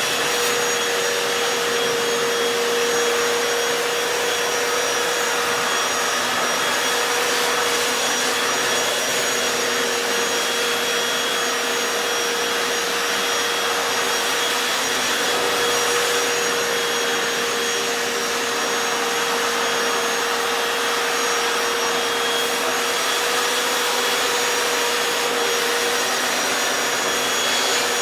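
Hoover FloorMate Deluxe wet floor cleaner running in wash mode, its spin-scrub brushes and suction picking up food mess with no cleaning solution sprayed. A steady whine over the motor noise.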